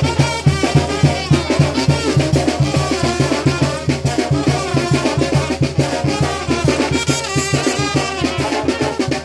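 Lively Latin dance music with a quick, steady drum beat.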